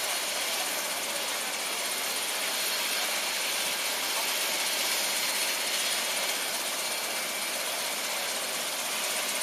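Steady, even background din with no distinct events or clear engine note.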